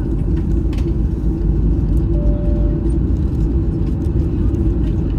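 Steady low rumble and constant hum inside the cabin of a Boeing 737-800 on the ground before takeoff. A short higher-pitched tone sounds for under a second about two seconds in.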